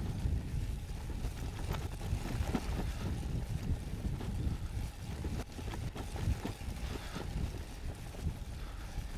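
Wind rumbling on the microphone: a low, unsteady rumble.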